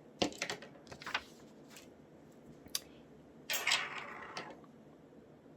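Small paper cut-out and glue stick being handled: a few light clicks and taps, then a short papery rubbing sound about three and a half seconds in as the glue stick is worked over the paper.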